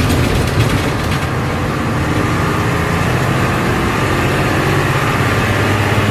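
Old bus's engine running steadily as the bus drives along, heard from inside the cab: a loud, low hum with road noise.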